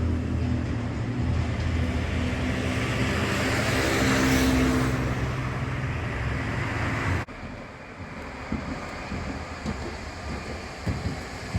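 A vehicle engine drones steadily and swells as it passes close about four to five seconds in. The sound cuts off abruptly after about seven seconds, leaving quieter street ambience with a few light clicks.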